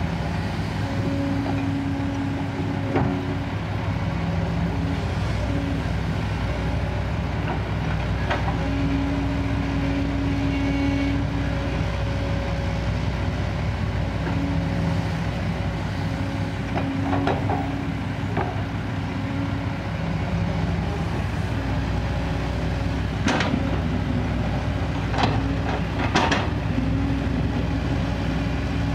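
Kobelco SK200 excavator's diesel engine running steadily, with a tone that comes and goes several times as the hydraulics are worked. Scattered knocks and clanks, a cluster of them loudest near the end.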